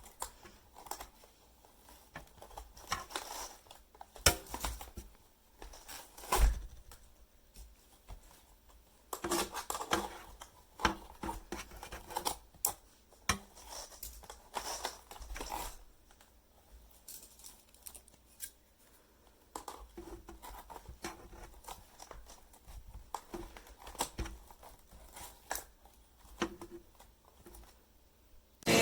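Irregular clicks, knocks and short rustles of plastic parts being handled, on and off, from a Shark Rocket corded stick vacuum.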